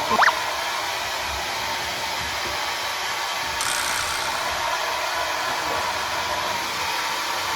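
Hand-held hair dryer blowing steadily, a rush of air with a faint motor whine. A short rising whistle comes right at the start, and the high hiss gets brighter about three and a half seconds in.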